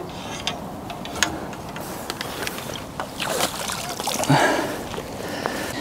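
Water splashing and sloshing in irregular bursts as a hooked carp is brought in to the bank.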